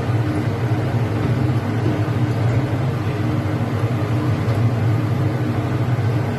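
Steady low mechanical hum of commercial kitchen equipment, with an even rush of noise over it and no change.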